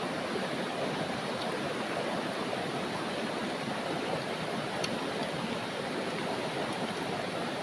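River water rushing steadily over rocks, an even continuous wash.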